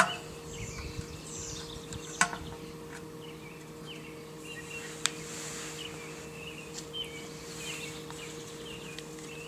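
Birds chirping on and off over a steady low hum, with a few sharp clicks from handling small parts, about two seconds in and again about five seconds in.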